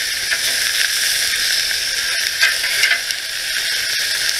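Hamburger patties sizzling on a barbecue grill: a steady hiss with a few scattered pops and crackles.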